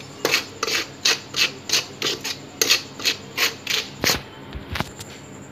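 Metal spoon scraping around a stainless steel bowl while stirring dry flour, sugar and cocoa powder together, in quick rhythmic strokes of about four a second. The strokes stop about four seconds in with a sharp knock, then another knock under a second later.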